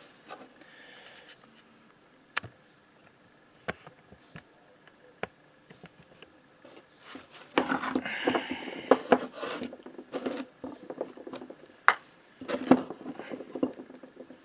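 Metal clinks, knocks and scrapes of a Motobécane AV89 moped engine crankcase being handled and set down on a wooden block on a workbench. A few sharp single clicks come first, then a busier spell of clattering in the second half.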